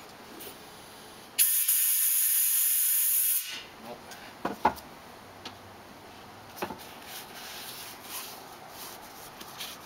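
Compressed air hissing at a tire and rim in one steady burst of about two seconds, starting and stopping abruptly. Afterwards there are faint rubs and a couple of light clicks as the tire is handled.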